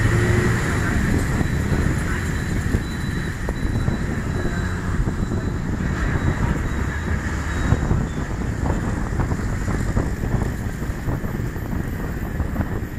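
City bus driving along a road, heard from inside at an open window: engine and road noise mixed with wind rushing past the microphone.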